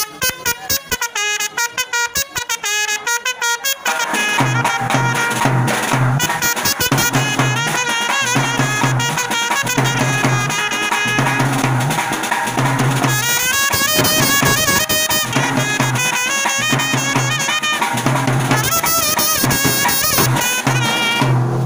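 Background music with a steady beat. A fuller arrangement with a repeating bass figure comes in about four seconds in.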